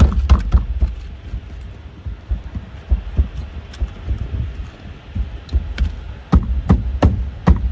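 Palms slapping a Molle storage panel bracket against a car's rear cargo-area plastic trim, pressing it on to bond its adhesive backing. The dull thumps come in quick runs, a cluster at the start, a few scattered ones, then another cluster near the end.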